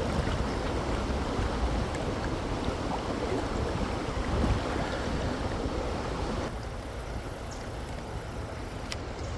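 Steady rushing of a high, fast-flowing creek. About two-thirds in, the sound thins and a high hiss takes over.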